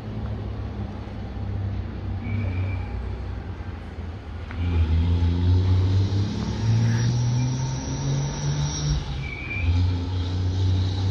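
Low engine rumble of a motor vehicle. It gets louder about four and a half seconds in, steps up in pitch twice, then drops back to its lower note.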